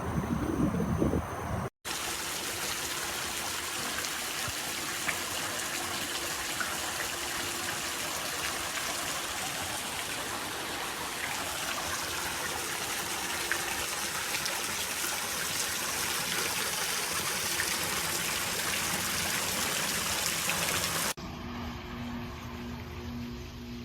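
Steady trickling and splashing of swimming-pool water. Near the end it cuts to a quieter passage with a low pulsing tone.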